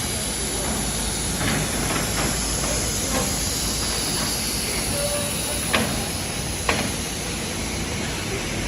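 Industrial sanding machine running on magnesium oxide (MgO) board: a continuous, even hiss, with two sharp knocks about a second apart past the middle.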